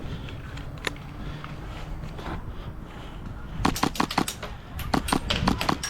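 Airsoft guns firing in two short, rapid strings of sharp clicking shots, a little past halfway and again near the end, after a single click about a second in.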